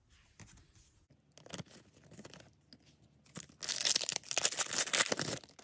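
Foil wrapper of a Disney Lorcana booster pack crinkling and tearing open by hand: a few light crackles, then a loud dense rip lasting under two seconds from about three and a half seconds in.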